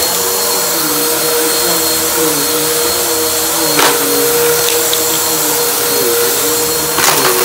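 Bissell bagless upright vacuum cleaner running steadily on a rug, its motor tone steady with a lower tone that wavers as it is pushed back and forth. A sharp click about four seconds in and crackling near the end as debris is sucked up.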